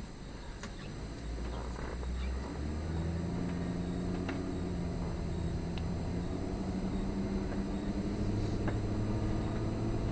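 Car engine and road noise heard from inside the cabin while driving, a steady low hum. Its pitch and level rise about two to three seconds in as the car speeds up.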